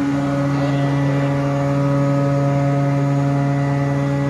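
Ship's steering gear hydraulic pump running with a steady, loud hum, working while the rudder is moved by the manual control at the valve block. The low hum strengthens right at the start.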